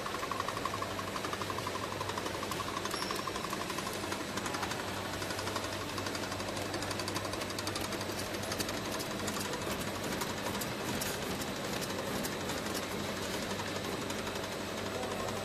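Automatic bottle filling and capping line running: conveyors and capping machinery clattering, with rapid clicking over a steady low hum.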